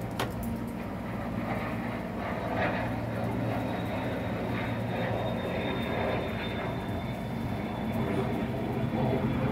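Steady low engine drone, with a sharp click shortly after the start.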